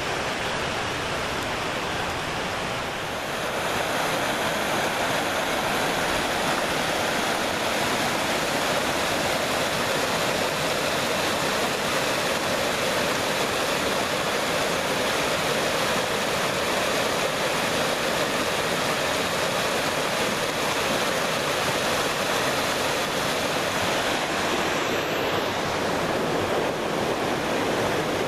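Mountain creek rushing and cascading over mossy boulders, a steady rush of water that grows a little louder a few seconds in.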